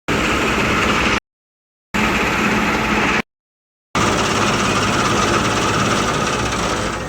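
Harvesting machinery engine running steadily with a heavy low hum. It comes in three stretches, cut off abruptly twice by dead silence, the last stretch running on.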